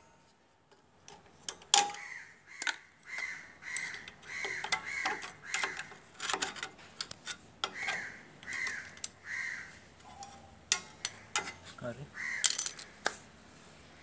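Sharp metal clicks and clinks of pliers and brake hardware being worked on a three-wheeler's drum brake assembly. A crow caws over and over behind them from about two seconds in until nearly ten seconds.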